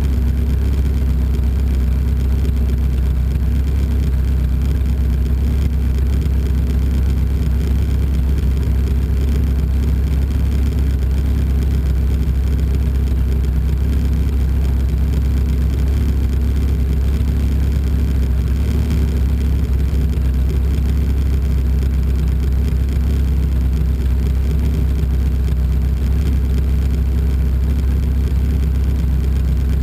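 Lotus 61 Formula Ford race car's engine running at a steady pitch, a constant low drone with no gear changes or revving.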